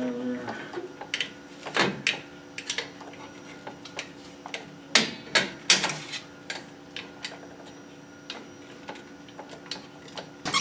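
Vice grips clicking and clanking against the steel return spring and shoe hardware of a drum brake as the big spring that holds the shoes together is worked off. The metal clicks come irregularly, with a few sharper clanks about 2 seconds in and again around 5 to 6 seconds.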